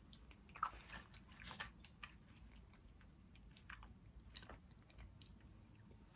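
Faint chewing and mouth sounds of someone eating mochi ice cream, with a scattering of small soft clicks.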